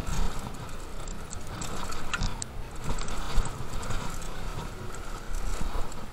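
Mountain bike riding down a rough dirt trail: tyres rumbling over dirt and rocks, with irregular clattering and knocks from the chain and frame.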